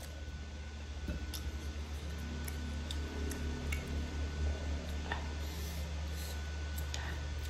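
Close-up eating sounds: chewing and slurping mouthfuls of meat from a bowl of meatball soup in chili broth, with a fork and spoon clicking now and then against the bowl. A steady low hum sits underneath.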